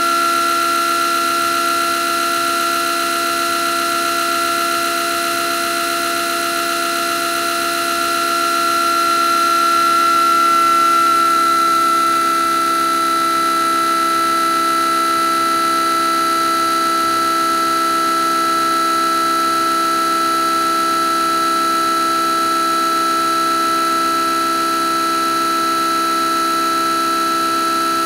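RTI DiscChek Eco-Junior optical disc repair machine running a repair cycle: a steady motor whine at an even pitch, with a strong high tone, swelling slightly about ten seconds in.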